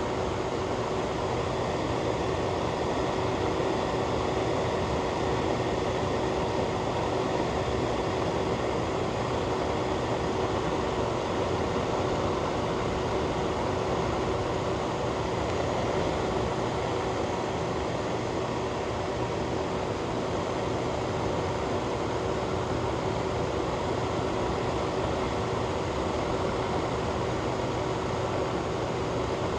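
Ventilation fan running steadily: an even rushing of air with a low steady hum underneath.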